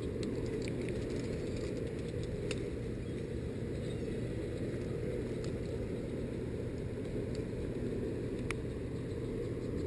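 Steady low rumble of river water pouring out below a hydroelectric dam, with a steady low hum under it and a few faint clicks.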